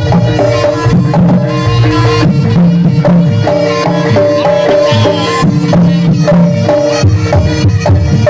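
Jaranan gamelan music: fast hand-drum strokes over held, ringing pitched tones, loud and unbroken.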